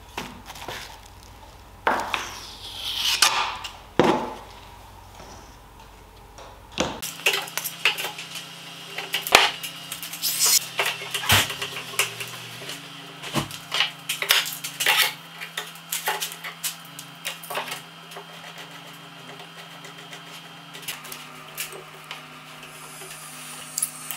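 Steel F-clamps clinking and knocking as they are set and tightened one after another on glued wooden lamellas, many sharp clicks in quick irregular succession, after a few brushing sounds in the first seconds.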